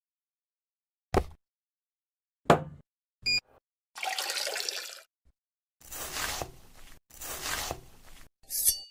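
A few short knocks of things set down on a table and a glass clinking, then cola poured into a glass and fizzing, followed by a knife cutting into a watermelon, and a short clink near the end.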